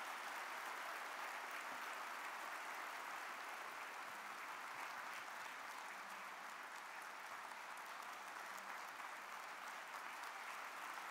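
Large audience applauding steadily, a sustained ovation at the end of a speech.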